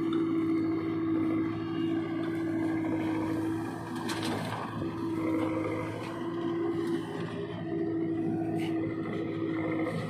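Diesel engines of a JCB 3DX backhoe loader and a tractor running steadily, with a high whine over them that drops out and returns a few times as the backhoe arm is worked. About four seconds in comes a short burst of noise as the bucket empties its load of mud into the trolley.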